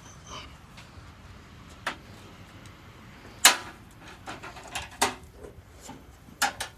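Parts of a television's casing being pried off and handled: a series of separate sharp clicks and knocks, the loudest about three and a half seconds in.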